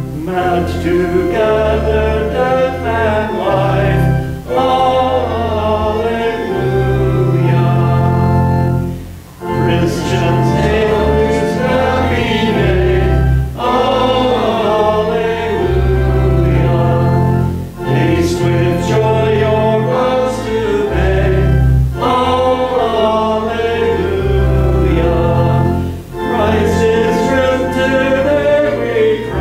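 Group singing of a church song over steady low accompaniment notes, in phrases about four seconds long with brief pauses between.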